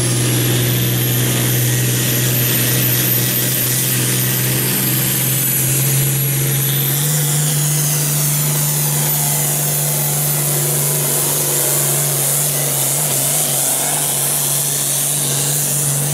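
An International Harvester farm tractor's turbocharged diesel engine runs flat out while pulling the weight-transfer sled. It gives a steady drone with a high turbo whistle that climbs in the first second and then holds. The engine note steps up in pitch about halfway through the pull.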